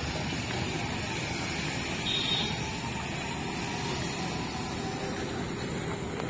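Steady road traffic noise, with one brief high beep about two seconds in.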